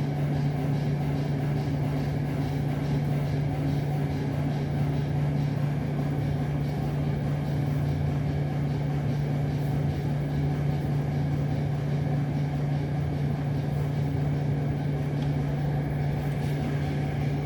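A steady low hum, like a motor or fan running, with no loud knock standing out above it.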